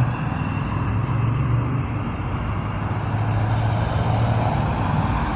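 Steady low engine rumble of motor traffic, an unbroken hum with a haze of road noise.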